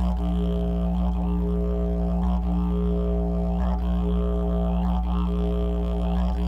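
Bamboo didgeridoo tuned to B playing a continuous low drone. Its overtones shift in a loose rhythm above the steady fundamental.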